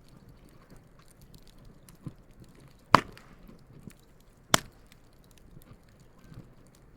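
Campfire wood burning with a soft low crackle, broken by sharp pops: a small one about two seconds in, then two loud cracks about a second and a half apart.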